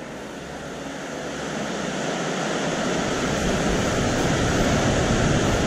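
Sea surf washing in, a steady rushing of water that swells louder over the first three seconds or so and stays strong.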